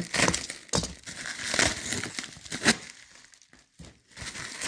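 Protective packaging being unwrapped by hand: irregular crinkling and rustling, with a pause of about a second roughly three seconds in.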